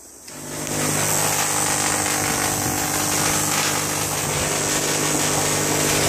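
Home-built vacuum tube Tesla coil switched on, its spark discharge giving a loud steady buzzing hiss over a low hum. It comes on about half a second in and builds to full strength within a second.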